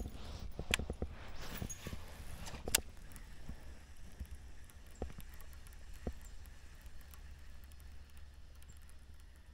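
Handling sounds of a fishing rod, reel and kayak while a lure is retrieved: a few sharp clicks and knocks, the loudest about three seconds in, over a low steady hum.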